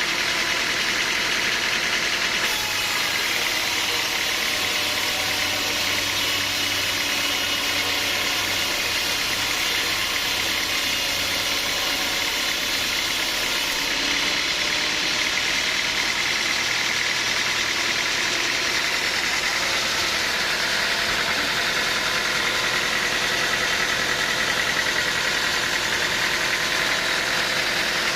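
Sawmill machinery running steadily: a constant, unbroken mechanical noise.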